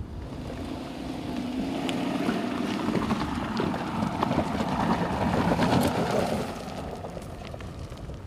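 Aston Martin DBX's twin-turbo V8 engine pulling the SUV up a steep dirt track, with tyres on loose ground and scattered clicks of stones. It swells to its loudest about five to six seconds in, then fades as the car climbs away over the crest.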